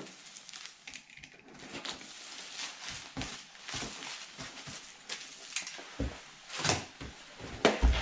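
Plastic wrap crinkling and rustling as it is peeled off a long cardboard box, in irregular crackles, with louder rustles and a low cardboard thump near the end as the box is lifted.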